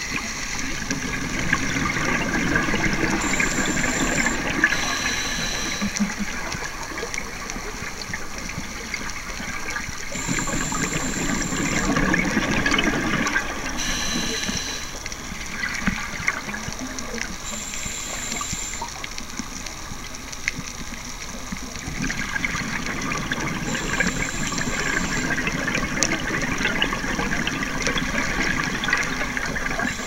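Scuba diver breathing through a regulator underwater: bubbling exhalations that swell and ease in surges every several seconds, with short high-pitched tones now and then.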